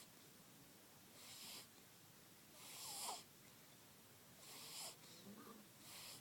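Faint snoring: four wheezy, hissing breaths about one and a half seconds apart, two of them with a faint whistle.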